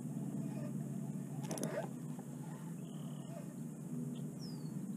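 Spinning reel being cranked as the line is reeled in: a steady low whir, with a brief scrape about a second and a half in.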